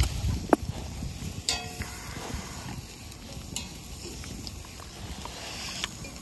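Light clicks of metal chopsticks and tableware at a table, with one short metallic clink about a second and a half in, over a low rumble.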